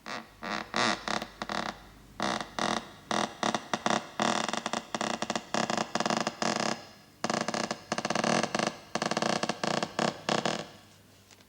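Creaky-door sound effect made by dragging a dry finger across an inflated balloon: a long, stuttering creak of many short squeaks at a steady pitch, in uneven bursts, stopping about a second before the end.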